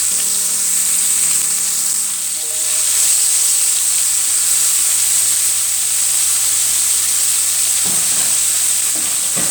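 Seasoned king prawns frying in hot oil in a pan: a steady, loud sizzle.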